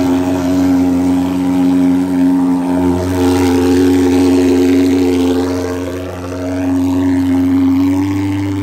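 Portable thermal fogging machine's pulse-jet engine running with a loud, steady buzzing drone as it blows out insecticide fog for mosquito control, its pitch shifting slightly now and then.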